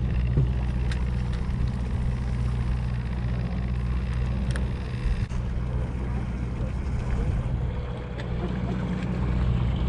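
Charter boat's engine running steadily at idle, a low even hum, with a few faint clicks.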